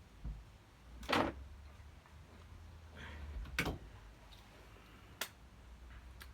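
A few separate sharp clicks and knocks, about four, spaced a second or more apart, from hand tools and metal parts being handled during brake and hub work.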